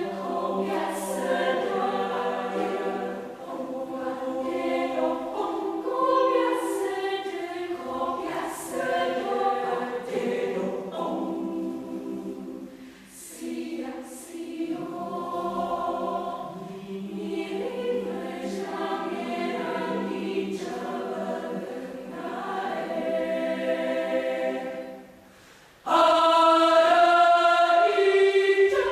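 Indonesian choir singing in multi-part harmony, with held chords. Near the end it drops away briefly, then comes back in suddenly and much louder.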